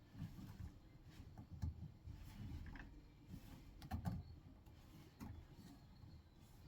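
Faint scattered clicks, taps and handling noise of a piston ring being worked by hand onto a diesel engine piston, a few small metallic ticks among them.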